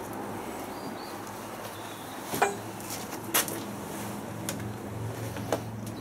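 Clothes being stuffed into a front-loading washing machine drum: soft rustling of fabric, with three sharp clicks or knocks spread through the middle and near the end.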